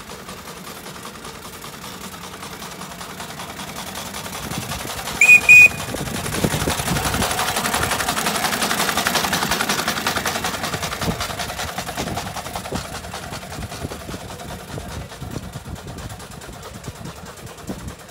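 Scale-model Foster steam traction engine chuffing rapidly as it drives past, growing louder and then fading away. About five seconds in, a whistle gives two short, high-pitched toots, the loudest sound.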